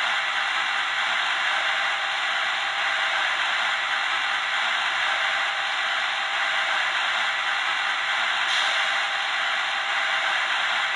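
Steady hissing rush played by the sound decoder of an H0-scale Renfe 269 electric locomotive model through its small onboard speaker while the model stands still, with almost no bass.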